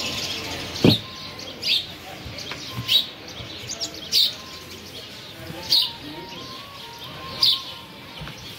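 A small bird chirping: short, high, slightly falling chirps repeated at uneven intervals of about a second or so. There is a single sharper knock about a second in.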